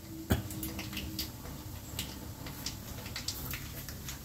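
Mustard seeds and dal frying in hot oil in a small pan for a tempering: scattered, irregular pops and crackles over a faint sizzle, with one sharper pop about a third of a second in.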